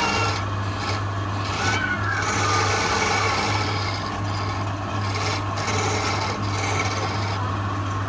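Wood lathe running with a steady low hum while a hand-held turning chisel cuts the spinning wooden spindle, a scraping hiss that breaks off briefly several times between cutting passes.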